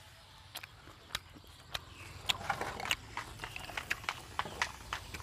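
Cola poured from a can into a glass. A few sharp clicks come first, then about two seconds in the pouring starts: a splashing stream with many small crackling pops of fizz.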